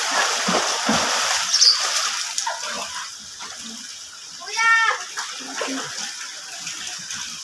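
Pool water splashing and churning as swimmers kick, loud for the first few seconds and then easing off. About two-thirds of the way through comes one short, high call.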